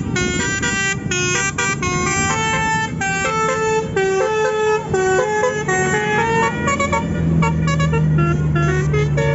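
Telolet musical bus horn playing a rapid tune of short notes that step up and down in pitch. Under it a steady low engine hum grows louder about two-thirds of the way in.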